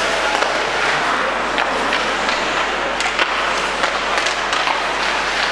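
Ice hockey skates scraping and carving on the rink ice, with several sharp clicks of sticks on the puck, over a steady arena noise.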